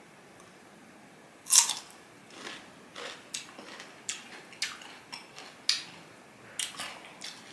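A crisp bite into a raw slice of ambarella (cóc fruit) about a second and a half in, the loudest sound, followed by crunchy chewing with a crunch about every half second.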